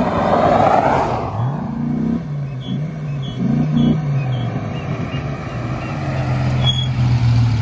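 Dodge Ram SRT-10 pickup's 8.3-litre V10 engine pulling toward and up to the listener. Its pitch rises and falls a few times, then holds steady as the truck draws near.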